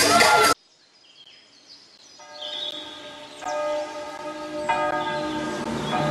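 Music cuts off abruptly, leaving a moment of near silence with faint high chirps. Then a bell rings three strikes a little over a second apart, each left ringing on.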